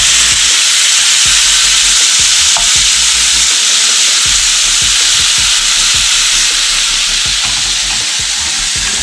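Raw shrimp sizzling loudly as they are spooned into hot oil in a frying pan: a steady frying hiss with a few faint spoon clicks.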